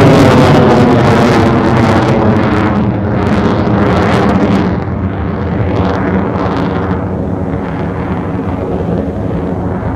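Fighter jet passing and pulling away: a loud jet roar with a whine that falls in pitch. The hiss fades after about five seconds, leaving a lower rumble.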